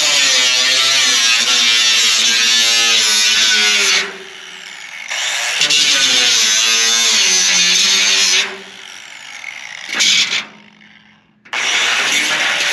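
Angle grinder cutting corrugated metal roofing sheet, a loud grinding whine whose pitch dips and recovers. It eases off twice, around four and eight seconds in, and cuts out briefly near the end before starting again.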